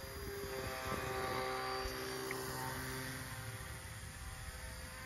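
Foam board RC model airplane's motor and propeller buzzing in flight, getting louder as the plane passes close overhead about a second in and then fading as it flies away.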